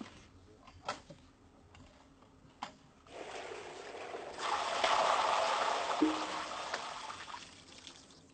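Rushing, splashing water that swells about three seconds in, peaks and then dies away, after a few sharp knocks.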